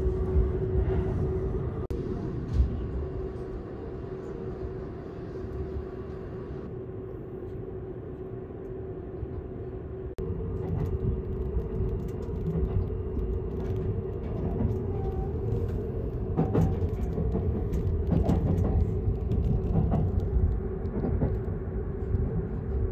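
Seibu Laview limited-express train running, heard from inside the car: a steady low rumble of wheels on rails with a steady hum over it. Sharp knocks come now and then in the second half.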